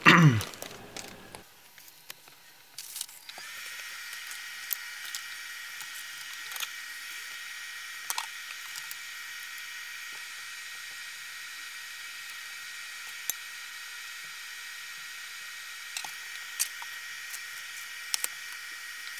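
Steady hiss with a faint high-pitched whine held at one pitch, broken by a few light clicks.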